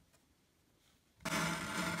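Near silence, then about a second in the cutting head of a rotary paper trimmer starts sliding along its rail. It makes a loud, even scraping rasp as the blade cuts through the thick painted paper.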